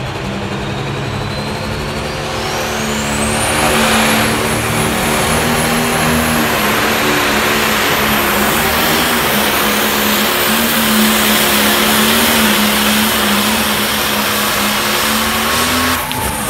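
Turbocharged diesel engine of a Super Farm pulling tractor running at full throttle under load as it drags the pulling sled. A high turbo whine rises over the first four seconds, then holds steady over the loud engine. It cuts off suddenly near the end.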